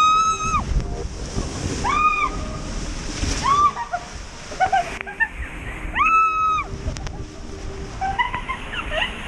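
A rider screaming while going down a water-park tube slide: about six long, high-pitched shrieks a second or two apart, over rushing and splashing water.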